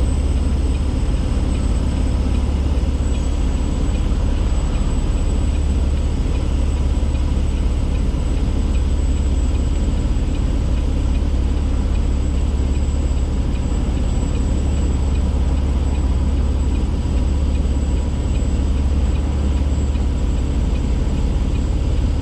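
Semi truck's diesel engine heard from inside the cab: a steady low rumble that holds even throughout.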